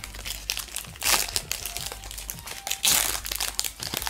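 Foil wrapper of a Pokémon trading-card booster pack crinkling in irregular bursts as it is handled and opened by hand, loudest about one second in and again near three seconds.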